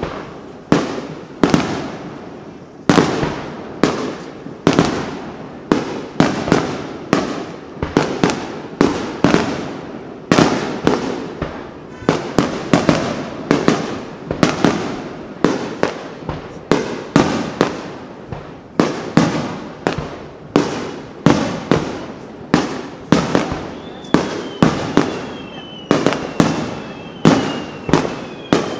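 Aerial firework shells bursting in quick succession, one to two sharp bangs a second, each trailing off. Near the end several whistles glide down in pitch between the bangs.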